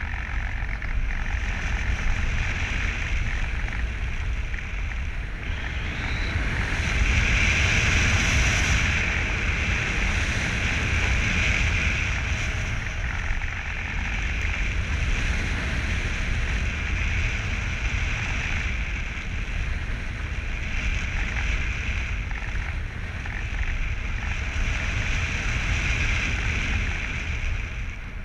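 Wind rushing over a camera mounted on the nose of a radio-controlled model plane in flight, a steady low buffeting rumble with a higher rushing hiss that is strongest from about seven to twelve seconds in.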